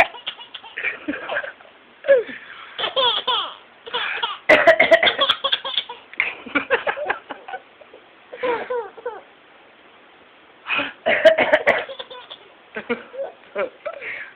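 A baby laughing in repeated bursts at an adult's fake sneezes, with short pauses between rounds; the loudest rounds come about four and a half and eleven seconds in, each opening with a sudden sharp sound.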